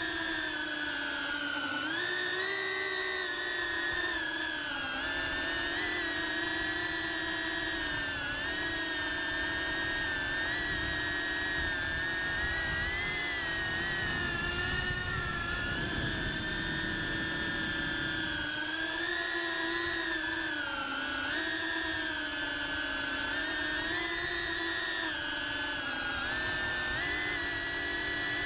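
Cinewhoop FPV drone's motors and propellers whining continuously, the pitch rising and falling every few seconds as the throttle is worked.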